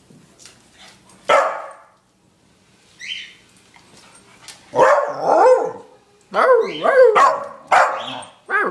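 Scottish Terrier making odd barks: one sharp bark about a second in, then from about five seconds a run of drawn-out barks that slide up and down in pitch, almost like talking.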